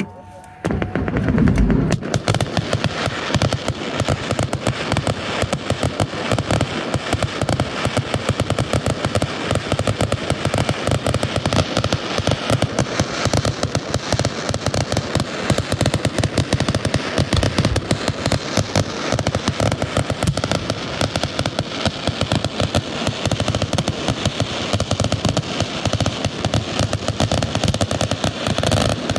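Fireworks going off in a rapid, unbroken barrage of crackles and pops, starting about a second in.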